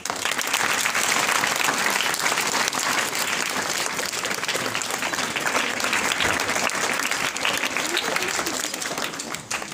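An audience applauding, a dense steady clatter of many hands clapping that dies away near the end.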